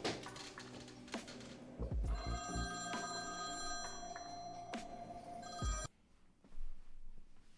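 Soundtrack music with deep bass hits and a cluster of sustained high, chime-like tones. It cuts off abruptly about six seconds in.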